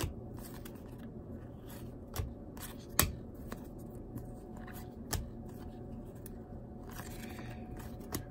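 1994 Donruss Triple Play baseball cards being flipped through by hand: a soft rustle of card stock sliding over card, broken by a few sharp snaps as cards are peeled off the stack, the loudest about three seconds in.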